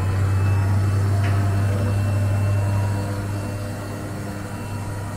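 Truck machinery running with a steady low hum, easing off somewhat about three seconds in.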